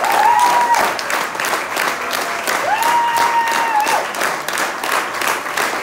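Audience applauding with dense, steady clapping, and two long piercing whistles of approval, one right at the start and a longer one about two and a half seconds in.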